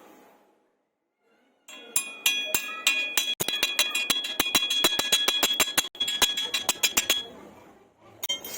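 Rapid hammer strikes on steel with a bright metallic ring, several a second for about five seconds, then a few more near the end.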